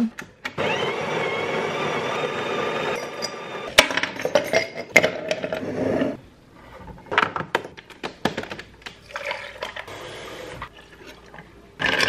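A small electric kitchen appliance motor runs steadily for about five seconds. It is followed by scattered clinks and rattles of ice cubes in a glass jar as iced coffee is made and stirred with a metal straw.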